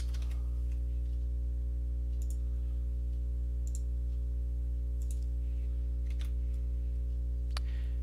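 Computer mouse clicking about six times, a second or so apart, as edges are selected in CAD software, over a steady low electrical hum on the recording.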